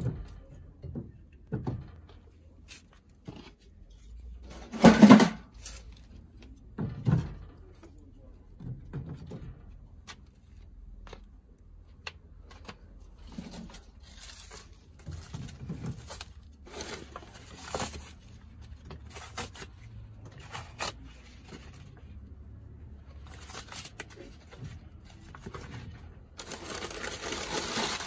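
Şafak wood-burning kitchen stove being loaded and tended by hand: scattered metal clanks and knocks from its lids and firebox door, the loudest about five seconds in. Rustling near the end.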